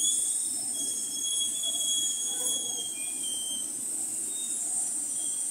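Busy street traffic and crowd noise from minibus taxis and motorcycles at a road construction junction, steady throughout. A thin, high, steady whistle-like tone sounds over it for about the first three seconds.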